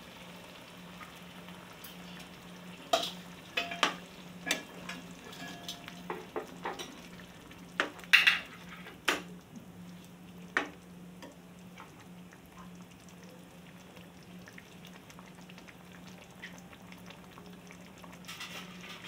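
Steel ladle stirring a simmering pumpkin curry in a metal pan, with scattered scrapes and knocks of the ladle against the pan in the first half, the loudest a little past the middle. Underneath, a faint sizzle of the curry and a steady low hum.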